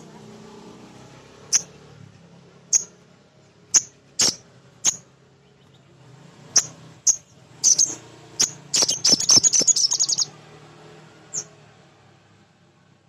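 Male sogon (little spiderhunter) calling. It gives sharp, high single notes about once a second, then a fast run of rapid repeated notes lasting about a second and a half, a little before the 9-second mark. A faint low hum runs underneath.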